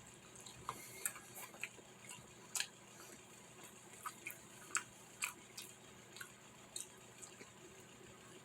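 Faint, irregular clicks and crunches of someone chewing a bite of pepperoni pizza.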